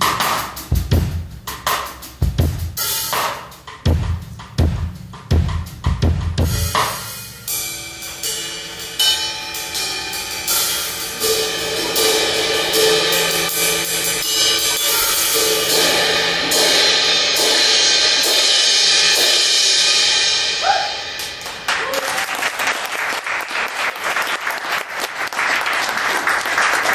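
Acoustic drum kit solo. For the first seven seconds or so it is heavy kick-drum and tom hits, then a long wash of cymbals builds up. About three-quarters through it drops into fast, dense strokes.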